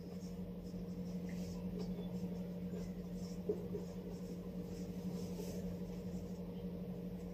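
Quiet room tone: a steady low electrical hum with faint background hiss, and one small click about three and a half seconds in.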